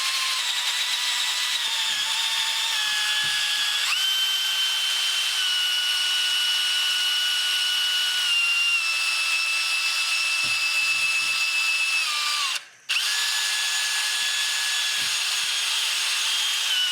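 Electric drill spinning a round wire brush against the bottom of a cracked oil pan, scrubbing the area around the crack clean before an epoxy repair. The motor whine jumps up in speed about four seconds in, slowly sags under load, cuts out for a moment about three-quarters of the way through and starts again.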